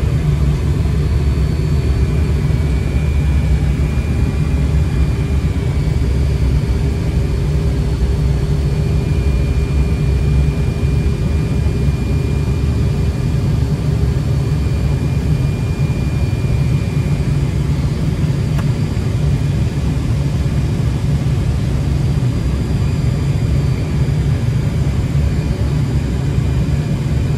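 Fokker 100 flight-deck noise on final approach: a steady low rumble of airflow and the twin rear-mounted turbofan engines, with a faint high whine that comes and goes.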